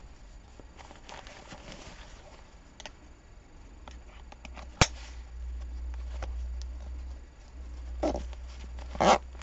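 Fabric rustling and strap handling as a packed buttpack's flap is closed and its top strap pulled and fastened, with one sharp click about halfway through and louder rustles near the end.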